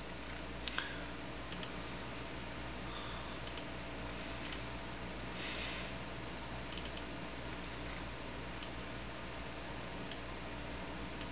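Computer mouse buttons clicking about a dozen times, several in quick pairs: double-clicks that open icons on the Amiga Workbench desktop. A steady low hum runs underneath.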